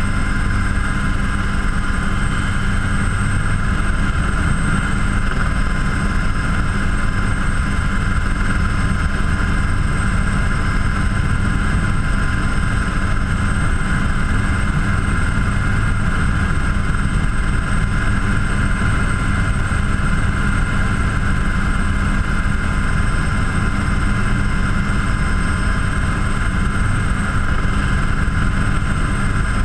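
Helicycle kit helicopter's Solar T62 turbine engine and rotor in cruise flight, heard from the cockpit: a steady high turbine whine over a dense low rotor rumble that holds unchanged.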